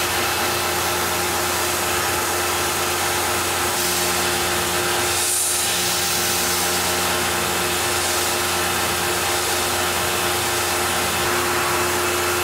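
Tormach PCNC 1100 CNC mill spindle running a long-reach two-flute carbide end mill through aluminum, a steady machining sound: an even hiss with a held hum tone under it.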